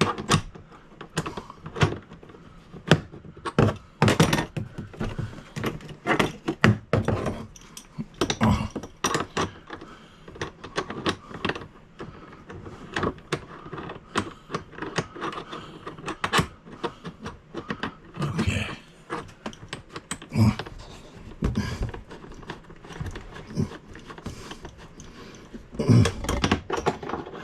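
Many irregular knocks, clunks and small rattles of hand tools and bidet plumbing fittings bumping around an RV toilet while they are fitted in a cramped spot.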